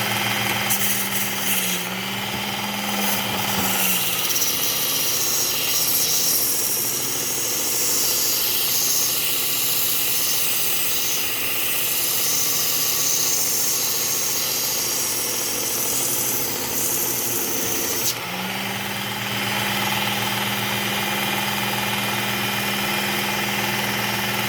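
Work Sharp Ken Onion Elite belt sharpener running with a Cubitron 120-grit belt. From about four seconds in until about eighteen seconds in, a hand pruner's steel blade is ground against the moving belt, making a steady grinding hiss that covers the motor hum. After that the machine runs on alone with a steady hum.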